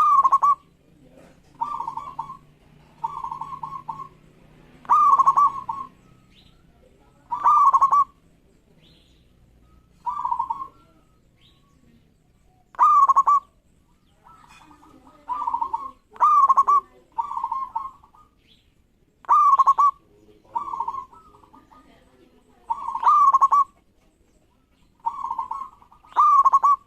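Zebra dove (perkutut) cooing: a string of short, rolling coo phrases at one steady pitch, repeated every one to three seconds, some loud and some softer.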